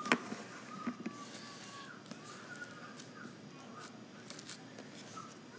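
Fluffy slime with foam beads being scooped up and squished by hand, with a few soft clicks and small crackles. A faint, wavering high squeak runs through the middle.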